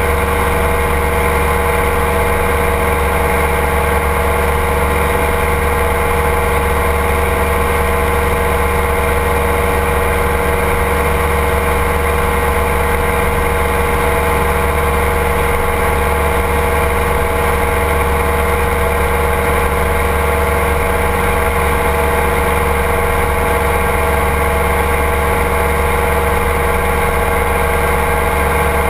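Ultralight trike's engine running at a steady cruise in flight: a constant drone made of many steady tones, with no change in pitch or loudness.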